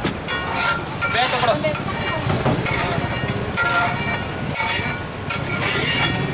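Metal spatula scraping and stirring pav bhaji on a large flat tawa, in repeated irregular strokes over a steady sizzle.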